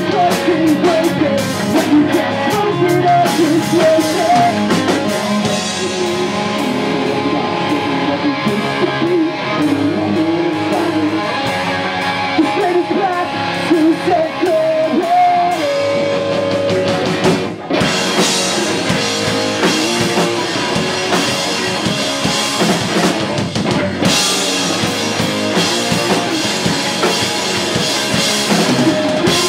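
A pop-punk rock band playing live: distorted electric guitars, bass and a drum kit, with a melodic line moving over the chords. A little past halfway the band stops short for a moment, then crashes back in with heavy cymbals.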